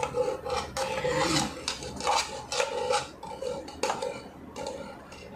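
A metal spoon scraping thick condensed milk out of an opened tin can, in repeated rasping strokes about two or three a second, with a faint metallic ringing from the can.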